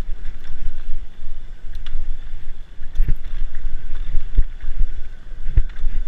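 Downhill mountain bike rolling fast down a dirt forest trail: wind buffets the action camera's microphone over a steady rumble of tyres and rattle, with a few heavy thumps as the bike hits bumps about halfway through and near the end.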